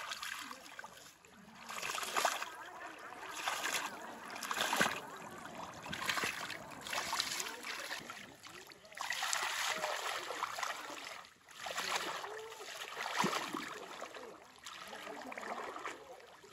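Legs wading through shallow muddy water, sloshing and splashing in repeated surges a second or two long.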